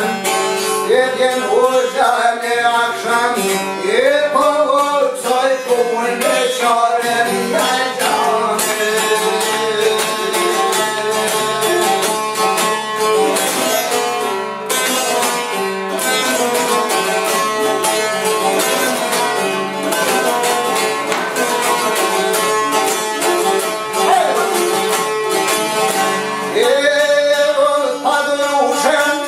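A man's voice sings Albanian folk song over several long-necked plucked lutes of the çifteli and sharki kind, strummed and picked together. The singing drops out after about eight seconds for a busy instrumental passage of plucked notes, and comes back a few seconds before the end.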